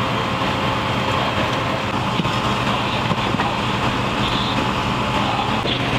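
Fire-engine motor running steadily at the fire scene, a constant low engine hum under a broad rush of noise, as when the engine drives the pump that feeds the hoses. A second low tone joins near the end.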